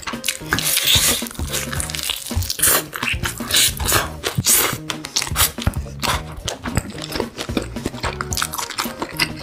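Crunching and chewing of crisp fried chicken as it is bitten off the bone, in irregular crackly bites, over background music.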